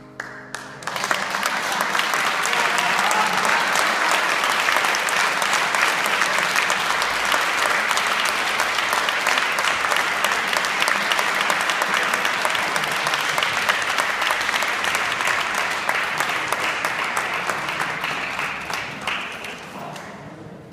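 Audience applauding, breaking out about a second in as the final held note of the aria fades, then thinning to a few last claps near the end.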